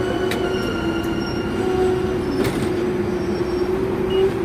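Hong Kong double-decker electric tram running along its rails, a steady whine over the rumble of the wheels, with a couple of brief clicks; the whine stops shortly before the end.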